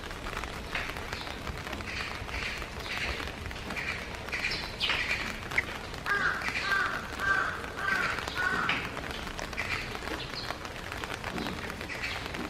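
Steady rain falling, with a bird calling over it: scattered short high chirps, and about halfway through a run of five repeated lower notes, roughly two a second.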